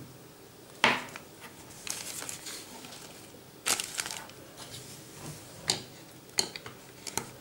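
Small plastic toy pieces being handled and pressed together, giving a handful of sharp clicks and snaps, with some crinkling of plastic packaging in between.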